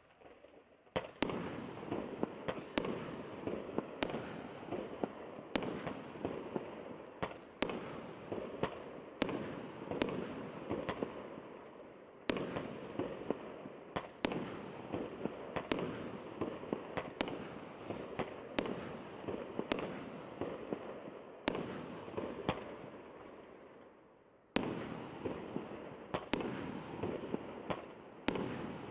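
A firework cake (multi-shot battery) firing: a sharp launch bang about every second or so, each followed by a dense crackling rush of bursts. There is a brief lull near the end before the shots start again.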